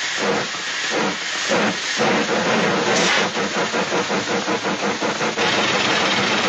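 Steam-locomotive chugging sound effect: rhythmic hissing chuffs, about two a second at first, picking up speed to about five a second from about two seconds in, like a train pulling away.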